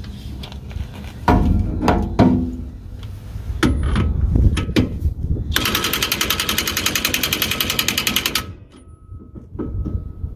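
Impact wrench hammering rapidly for about three seconds on the pinion nut of a Ford 8.8 rear axle, tightening it a little further, then stopping abruptly. Before it, several knocks and clanks as the tool is fitted on the nut.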